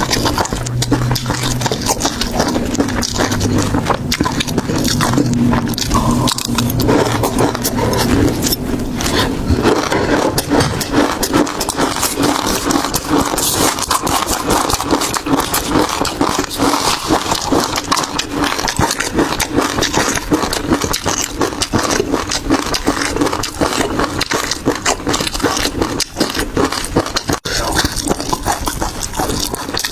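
Close-miked eating of seafood: continuous loud chewing and crunching with dense crackling and wet clicks.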